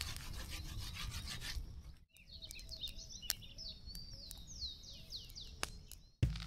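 About two seconds of rough scraping noise, then a bird singing a run of quick, high, downward-slurred whistled notes, with a couple of sharp clicks.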